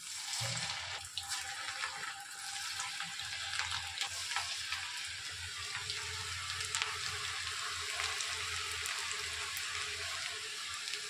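Chakli dough rings deep-frying in hot oil in a pan: a steady sizzle with many fine crackles, starting as the rings are lowered in.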